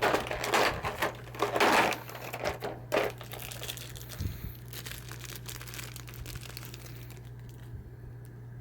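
Plastic figure packaging crinkling and rustling as it is handled, loudest in the first three seconds, then quieter handling over a steady low hum.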